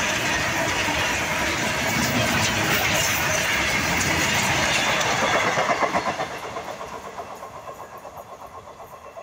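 Freight train wagons running past close at speed, a loud, steady noise of wheels on the rails. About six seconds in the last wagon goes by and the sound falls away into a fading, regular clatter as the train moves off.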